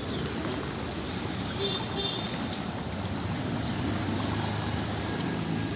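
Steady low rush of a small river running muddy and swollen after heavy rain.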